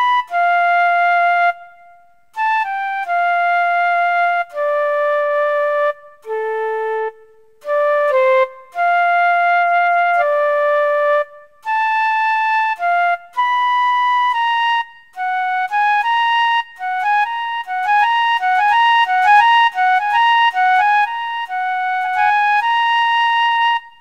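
Background music: a solo melody of slow held notes with short gaps between phrases, turning into a quick run of rapidly alternating notes in the second half before settling on a long held note.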